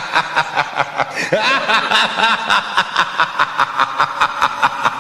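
A person snickering in a long run of rapid, rhythmic laugh pulses, about five a second, as in a meme laugh sound effect.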